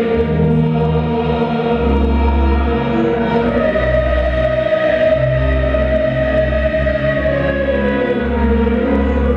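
Choral music: a choir singing slow, long-held chords that change every second or two.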